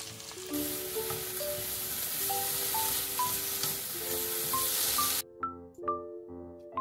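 Carrot and lotus-root strips sizzling as they are stir-fried with chopsticks in a frying pan, a dense hiss that cuts off suddenly about five seconds in. Background music with a slow melody of single notes plays throughout.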